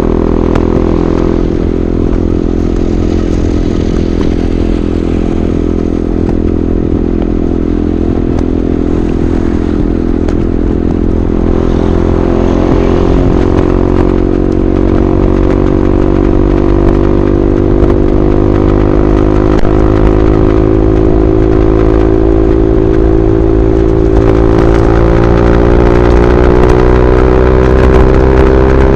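KTM RC 390's single-cylinder engine through an SC Project replica slip-on exhaust, running at highway speed. Its pitch climbs slowly and steadily as the bike gathers speed.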